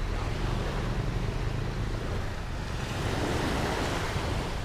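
Wind rumbling on the camera microphone over the steady wash of small waves breaking along a sandy shore, the wash swelling about three seconds in.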